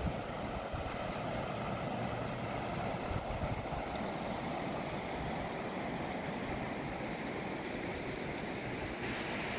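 Steady rushing of a flood-swollen creek, muddy water pouring over rapids and a washed-out crossing.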